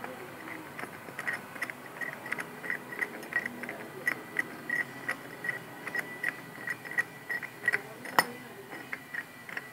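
Steel threaded rod of a homemade vise being turned by hand in its square nut and jaw: light metallic clicks with a ring, about three a second, with one sharper click near the end. The screw turns freely without coming out of the jaw.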